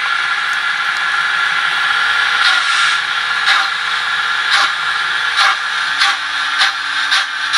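Model BR 01 steam locomotive's Märklin sound decoder playing steam-engine sound through the model's small loudspeaker: a steady steam hiss with chuffs that come faster, about one a second at first and about two a second near the end, as the locomotive gets under way. A low steady tone joins about six seconds in.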